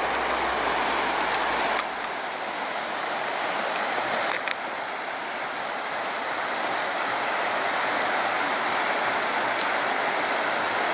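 Steady rushing of a shallow river running over stones, an even hiss of water whose tone shifts abruptly about two seconds in and again about four and a half seconds in.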